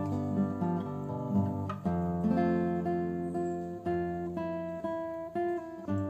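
Background music on acoustic guitar, plucked and strummed chords changing every second or so.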